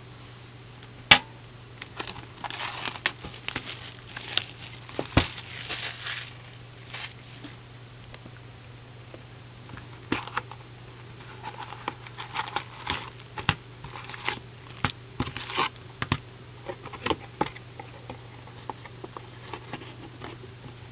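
Wrapping on a hobby box of trading cards being torn open and crumpled: crinkling and tearing with sharp snaps, in two bouts about two seconds in and again about ten seconds in, over a faint steady hum.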